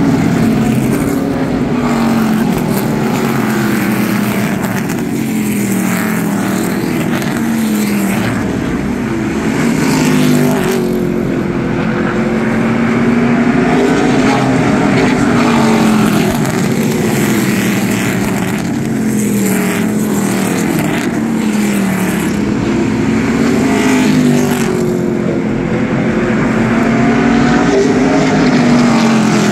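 A field of ARCA V8 stock cars racing on a short oval, several engines at once. Their engine notes rise and fall over and over as the cars pass and circle the track.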